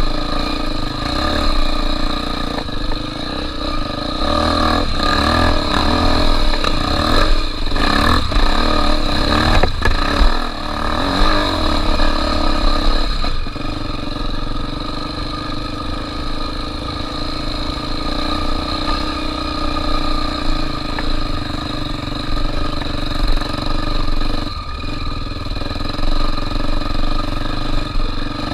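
Honda Tornado 250 trail motorcycle's single-cylinder four-stroke engine running under way. The revs rise and fall over the first half, then hold fairly steady.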